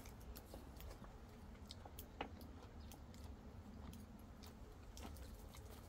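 Faint eating sounds: soft chewing and scattered small clicks, over a low steady rumble.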